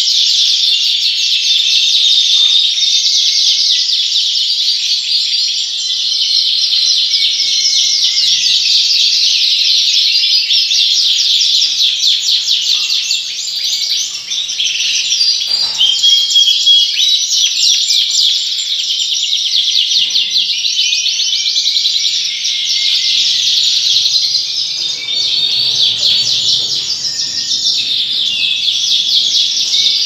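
A dense, unbroken chorus of many caged Yorkshire canaries singing and chirping at once.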